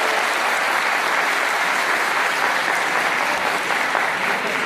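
An audience applauding steadily in a hall.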